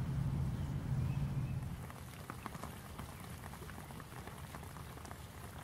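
A low rumble for the first couple of seconds, then light rain pattering: irregular drops ticking on leaves and plants.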